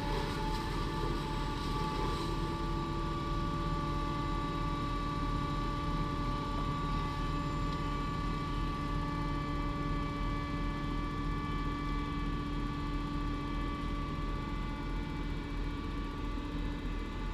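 Steady drone of heavy farm machinery: the Fendt 939 tractor's engine close by and a Claas Jaguar 980 forage harvester chopping maize alongside. Steady whining tones run over the engine noise and fade near the end.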